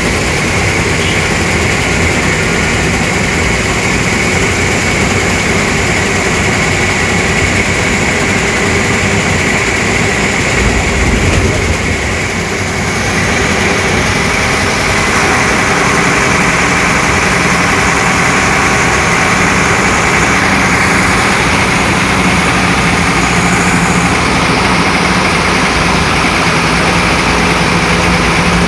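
Diesel engine of a Tata 1510 bus running steadily. It dips briefly about twelve seconds in, then settles into a slightly louder, even hum.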